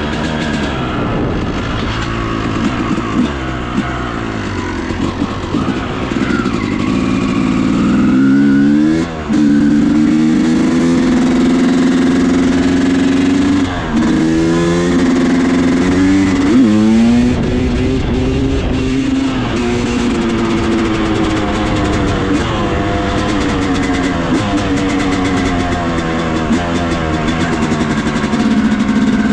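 2000 Yamaha YZ250's single-cylinder two-stroke engine running under riding, its pitch rising and falling back again and again as the revs climb and drop, with several quick rev swings in the middle stretch.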